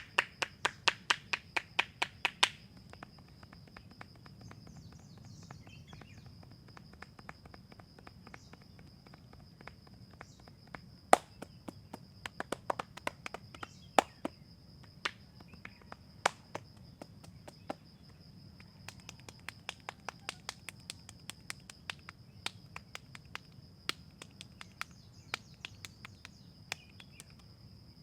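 Sharp hand strikes of a head massage, slaps, taps and clicks on the head: a quick run of about four a second for the first couple of seconds, then scattered taps with two louder cracks in the middle. Behind them, a steady high insect drone.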